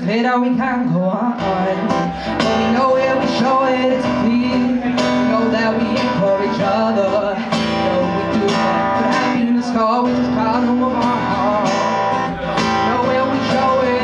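Acoustic guitar strummed in a steady rhythm while a woman sings the melody over it: a live solo acoustic performance.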